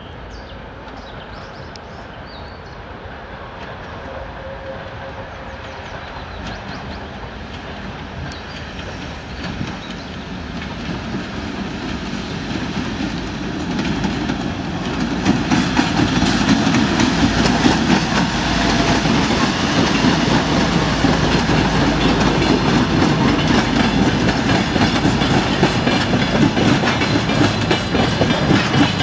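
Twin-section 2M62U diesel locomotive with its two-stroke 14D40 diesel engines, approaching and growing steadily louder as it passes close about halfway through. After that come the clickety-clack of wagon wheels over rail joints and the rumble of its flatcars rolling by.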